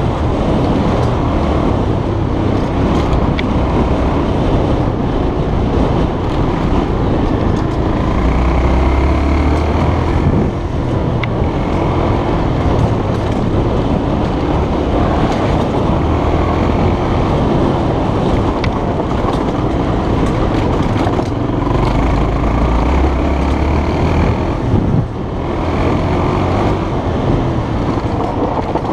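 Honda trail motorcycle's engine running as it rides over a rough dirt track, heard close up from a helmet camera under a steady rush of wind noise. The engine note swells and falls back a couple of times as the throttle changes.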